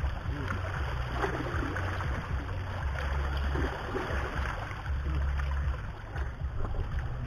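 Gusty wind buffeting the microphone in uneven low rumbles, over a steady wash of small waves against breakwater rocks.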